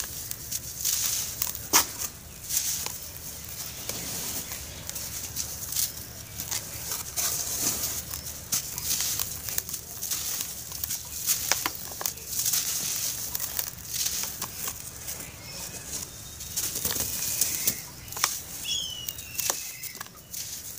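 Dry, crumbly grey cast chunks being crushed and crumbled by hand, with loose powder and grit trickling through the fingers: a steady gritty hiss broken by many irregular small crunches and cracks.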